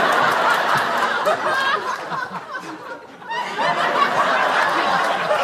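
A group of people laughing together, many voices overlapping. The laughter dies down briefly about halfway through, then swells again.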